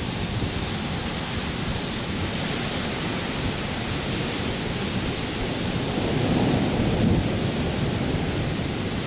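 Steady hiss of rain during a thunderstorm, with a low rumble of distant thunder swelling about six seconds in.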